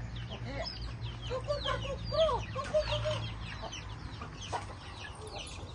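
A flock of chickens clucking and calling, with many short high falling calls throughout and a run of lower clucks in the first half.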